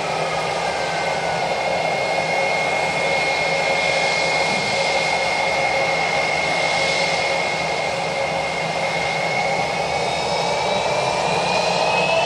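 Jet airliner's turbofan engines running with a steady high whine over a broad rush, the whine rising in pitch near the end.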